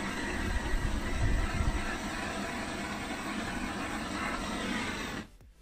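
Handheld gas-cartridge blowtorch burning with a steady hiss as its flame is passed over sanded white plastic to flame-polish it, with a low rumble about a second in. The hiss cuts off suddenly about five seconds in.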